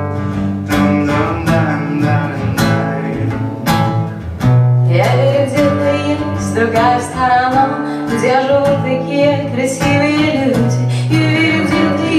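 A live acoustic guitar playing chords through the PA, alone for about the first four seconds; then a woman's voice comes in singing over it.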